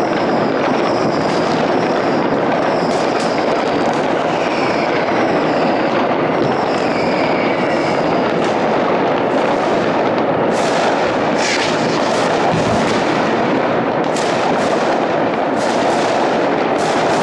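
New Year's Eve fireworks going off all over a city: a steady dense din of many bangs. Short falling whistles come through in the first half, and sharper cracks stand out from about ten seconds in.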